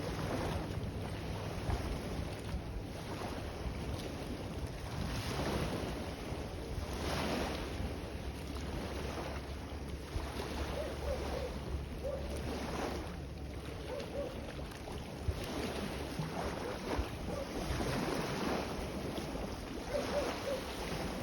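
Sea waves washing in repeated surges, with wind buffeting the microphone as a steady low rumble.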